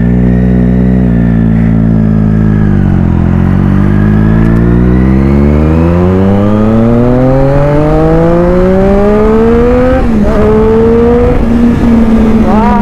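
Triumph Daytona sport motorcycle engine under way. It holds a steady note, eases off about three seconds in, then pulls hard with the pitch rising for about seven seconds. The pitch drops sharply at an upshift about ten seconds in, and there is a quick rev blip near the end.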